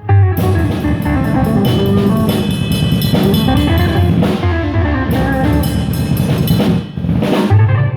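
Live band playing amplified through a PA during a sound check: guitar with a drum kit, steady drum and cymbal hits, with a brief break just before the end.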